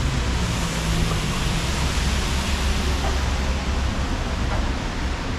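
Steady hiss of rain on a wet city street, with a low rumble of traffic underneath.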